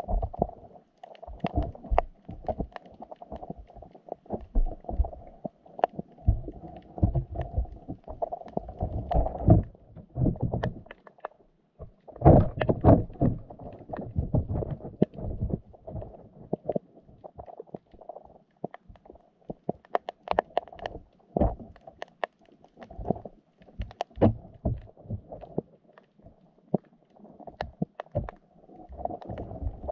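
Underwater sound picked up by a GoPro in its waterproof housing: a muffled murmur of moving water with frequent irregular knocks and clicks, and a few heavier spells of low rumbling.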